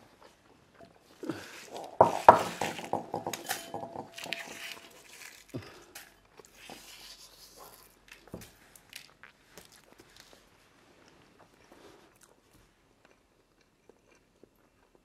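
Glass mixing bowls set down on a wooden table, with a loud knock and a brief ring about two seconds in, followed by small crackles and taps of boiled-egg shells being handled and dropped into the bowls, thinning out towards the end.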